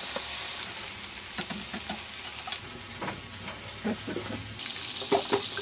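Hands tossing sliced cucumber, tomato and onion in a plastic bowl: scattered soft, wet clicks and rustles over a steady hiss.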